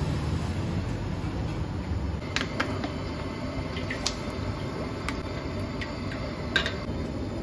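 Steady hiss of a gas wok burner, with a handful of sharp metal clinks from a steel ladle against the wok as cooking oil is poured in.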